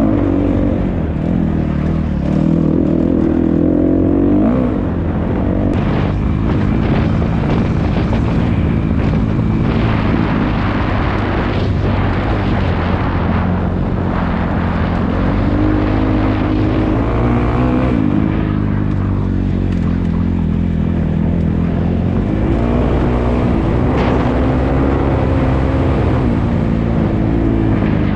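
Dirt bike engine being ridden around a motocross track, its revs rising and falling again and again as the rider accelerates, shifts and backs off.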